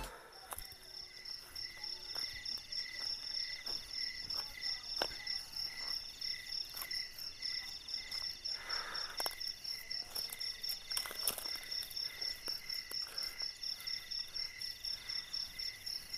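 Crickets and other night insects calling steadily, several evenly pulsed chirps at different pitches. Scattered soft clicks and crunches of footsteps on dry leaf litter and twigs, with a brief rustle about halfway through.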